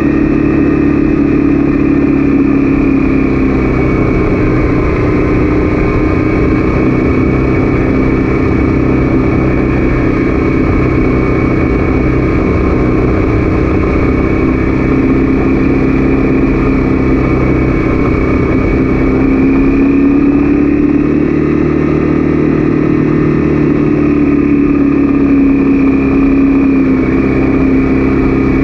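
Honda CB300F's single-cylinder engine running steadily at an even cruising speed, its note rising slightly about two-thirds of the way through and easing back down near the end.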